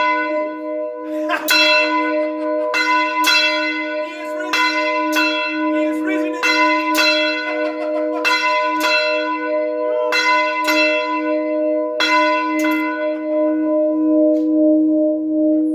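A 167-year-old church bell ringing close at hand in its tower, its clapper striking about fifteen times, mostly in uneven pairs roughly two seconds apart. The strikes stop about 13 seconds in and the bell rings on.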